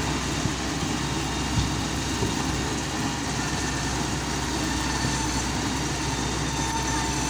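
Diesel engine of a Hitachi wheeled excavator running steadily as it holds up an overturned trolley, with a single short knock about one and a half seconds in.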